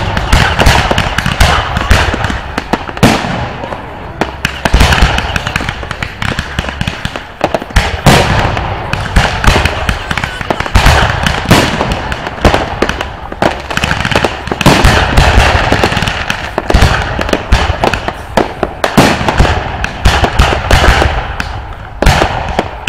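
Aerial fireworks going off in a dense barrage: many bangs from bursting shells in quick succession over a continuous crackle, with no pause.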